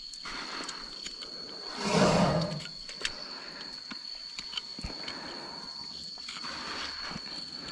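An elephant gives one short, noisy call or exhale about two seconds in, lasting under a second, the loudest sound here. Behind it runs a steady high-pitched whine, with a few faint clicks and scrapes of a hoof knife on the foot's sole.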